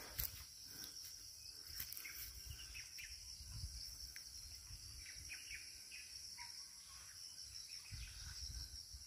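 Faint, steady high-pitched drone of insects, such as crickets or cicadas, with short bird chirps scattered through it. There is low rumbling from handling near the start and near the end.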